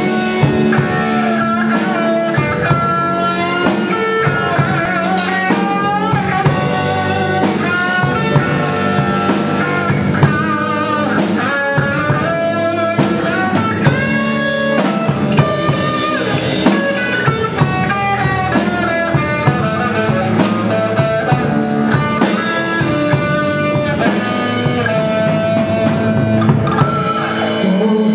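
Live rock band playing: electric guitars over a drum kit and bass, with a steady beat.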